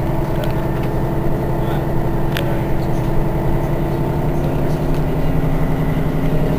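Mercedes-Benz Citaro city bus engine idling steadily while the bus stands at a stop, heard from just behind the bus.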